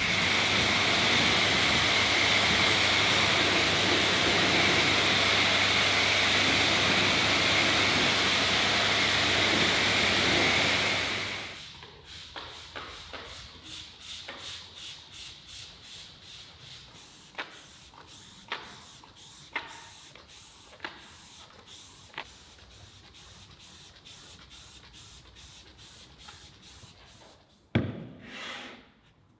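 Pressure washer spraying water over a car, a steady hiss with a fixed whine, cutting off about eleven seconds in. Then a hand trigger sprayer is pumped in quick even strokes, about two to three a second, and near the end a plastic spray bottle is knocked down onto a wooden bench.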